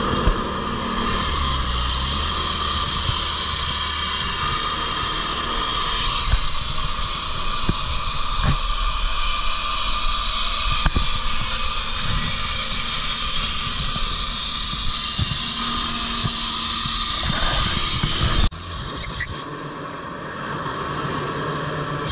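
Core Cut walk-behind diamond-blade road saw running and wet-cutting asphalt, a loud, steady machine noise with a constant hum underneath. About eighteen seconds in the sound drops suddenly to a quieter, steady level.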